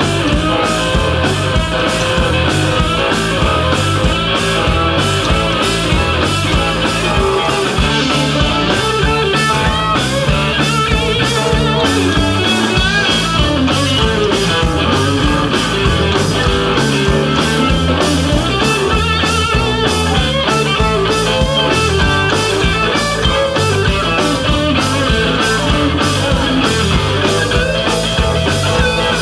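Live rock band playing: amplified electric guitars and bass over a drum kit keeping a steady beat.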